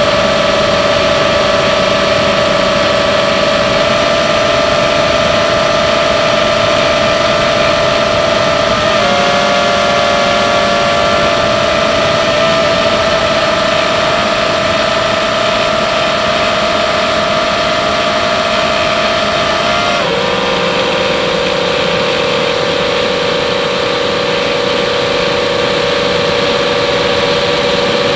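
FPV quadcopter's brushless motors and propellers whining steadily in flight over a rush of air; the pitch steps up about a third of the way in and drops lower about two-thirds in.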